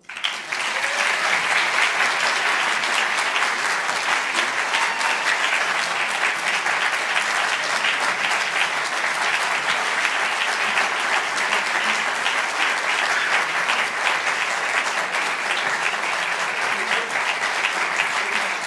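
Applause from a large audience, breaking out at once and holding steady as a dense patter of many hands clapping: a standing ovation at the close of a talk.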